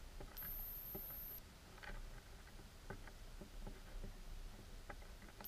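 Underwater ambience picked up by a submerged camera: faint, irregular small clicks and ticks about once a second, with a thin high-pitched whine for about a second near the start.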